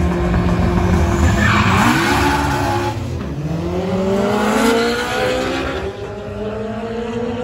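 Drag-racing cars launching from the start line, their engine notes climbing in pitch and dropping back at each gear change, about three rising sweeps as they pull away. A hissing burst comes under the first sweep.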